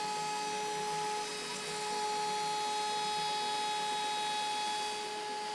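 CNC router spindle running at high speed while an end mill cuts through the part: a steady whine made of several tones over a hiss of cutting noise, dipping slightly in level about a second in and again near the end.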